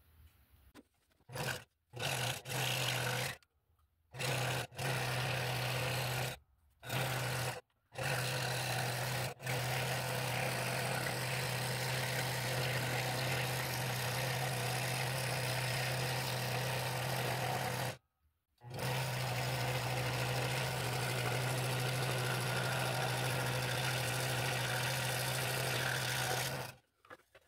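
Scroll saw running and cutting a bevelled circle through a segmented ash and mahogany blank: a steady motor hum with the buzz of the blade in the wood. The sound cuts out abruptly several times and resumes, then stops near the end.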